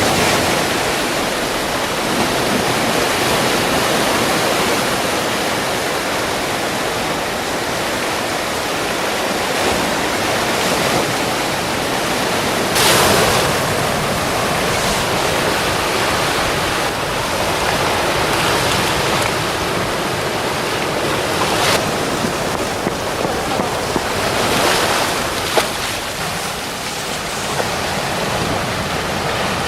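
Sea surf washing steadily on the shore, with a few louder waves breaking.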